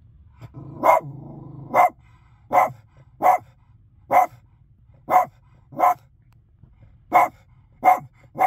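A dog barking inside a pickup truck cab: short barks repeated at a steady pace of about one a second, around ten in all.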